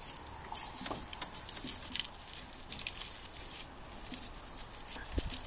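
Dry onion husks and dried onion tops crackling and rustling in the hands as bulbs are plaited into an onion braid, in scattered short crackles, with a soft low thump near the end.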